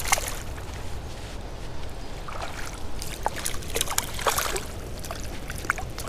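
A small smallmouth bass splashing and thrashing at the water's surface as it is reeled in on light line, a sharp splash right at the start and several more short splashes and sloshes after it.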